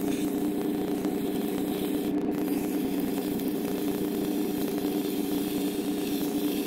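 Manual metal lathe running steadily, a hum with several steady tones, while sandpaper is pressed against the spinning metal velocity stack, adding an even hiss.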